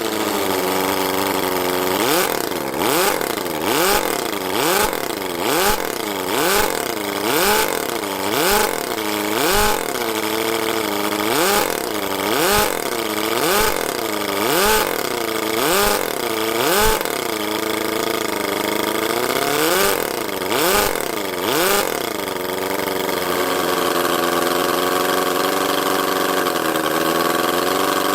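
Miniature 17.5cc four-cylinder OHV engine running, its revs rising and falling sharply about once a second as the throttle is blipped over and over, then settling into a steady run near the end.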